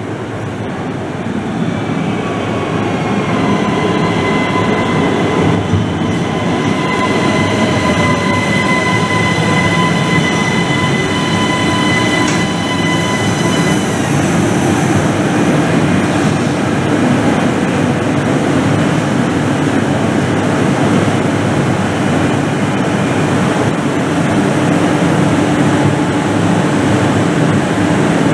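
ÖBB Cityjet electric multiple unit (Siemens Desiro ML) arriving at a station platform. As it slows, its brakes and wheels give a steady high squeal for about twelve seconds, which stops about halfway through. After that there is a steady low hum of the train's electrical equipment as it stands or creeps at the platform.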